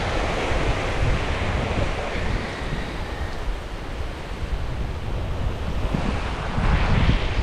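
Sea waves washing onto the shore under a strong wind that buffets the microphone with a low rumble, the rush swelling louder near the end.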